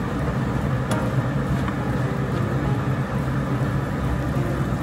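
Pork ribs sizzling in a non-stick wok as a wooden spatula stirs and turns them, over a steady low hum. There is a light tap of the spatula against the pan about a second in.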